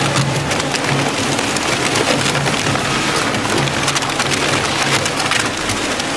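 Grupo SPR RS 85 twin-shaft shear shredder tearing cardboard between its counter-rotating knife shafts: a dense, continuous crackling and snapping over a steady low drone from the drive.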